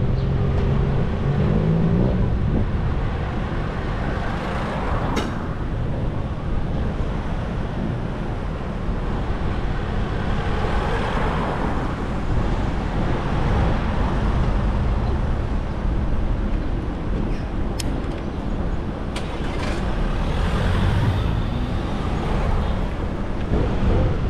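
Road traffic noise with a steady low rumble. Vehicles pass about ten seconds in and again near twenty seconds in, and there are a few short sharp clicks.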